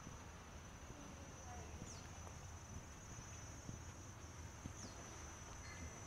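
Insects trilling steadily at a high pitch, with two short falling whistles about two and five seconds in.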